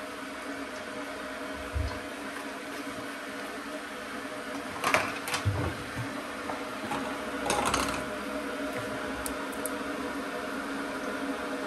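Steady motor hum from a kitchen appliance, with two short clatters of cookware about five and seven and a half seconds in.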